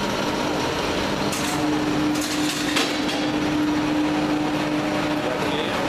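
Clay-brick extruder and cutting machine running with a steady droning hum, with a few sharp clanks in the middle.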